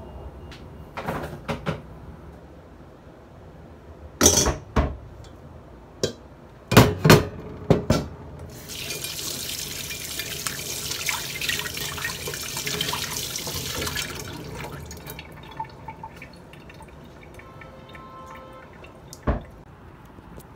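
Dishes clattering against a stainless-steel kitchen sink, several sharp knocks, then a kitchen tap running into the sink for about six seconds. One more knock near the end.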